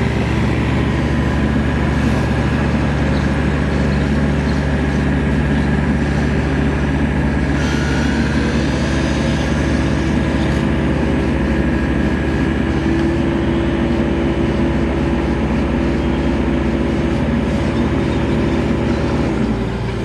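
XCMG mini excavator's engine running steadily under load as the machine moves and works its boom. The sound drops a little and changes about half a second before the end.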